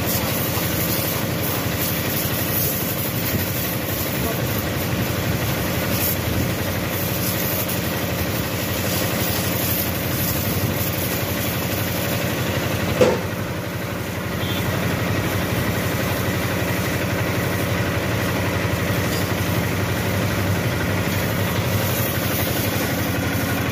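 A high-pressure water jet spraying against a muddy tractor tyre, hissing steadily over the even hum of a motor running. A short louder knock comes about 13 seconds in.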